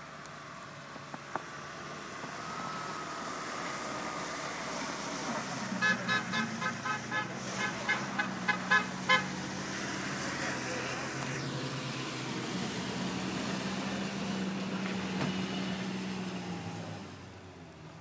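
A car horn honking in a quick string of about a dozen short toots, roughly three a second, for about three seconds. Under it a car engine runs steadily as the car struggles along the snowy road, fading near the end.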